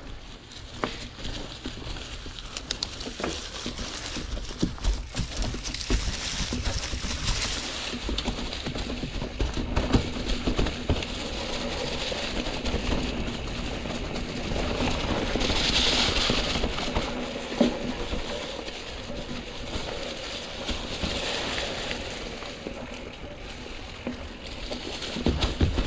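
Mountain bike tyres rolling over dry fallen leaves and rocky trail: a continuous crackling rush, broken by frequent knocks and rattles from the bike as it goes over bumps.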